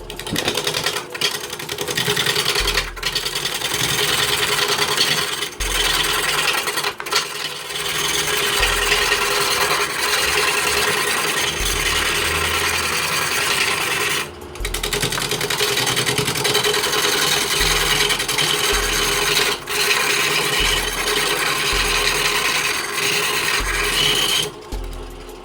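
Wood lathe roughing out a spinning log with a gouge: a continuous rasping, scraping cut over the steady hum of the lathe motor, broken a few times by brief gaps where the tool comes off the wood.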